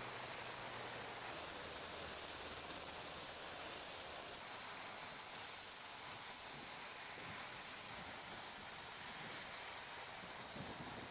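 Steady hissing noise with no clear rhythm, brighter and higher for about three seconds near the start.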